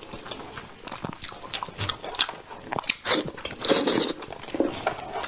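Close-miked eating of braised crucian carp by hand: wet lip smacks and chewing, with two louder sucking slurps about three and four seconds in as meat is sucked off the fish bones.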